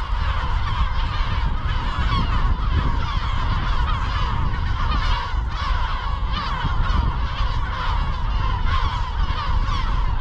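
A nesting colony of large gulls (goélands) circling overhead, many birds calling at once in a continuous, overlapping clamour, with a low wind rumble underneath.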